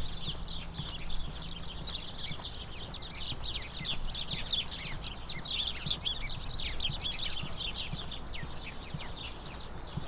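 Birds chirping, many quick falling notes overlapping throughout, busiest in the middle, with the hiker's footsteps on the trail underneath.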